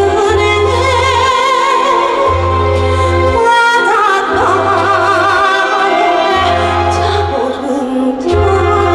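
Trot song performed live: a woman singing long, held notes with wide vibrato over a backing band, with a bass that pulses on and off.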